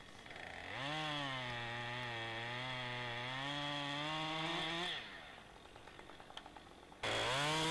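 Two-stroke chainsaw throttled up and held at high revs with a slightly wavering note while cutting, typical of trimming the buttresses at the base of a tree before felling. The throttle is released about five seconds in, and the saw revs up again near the end.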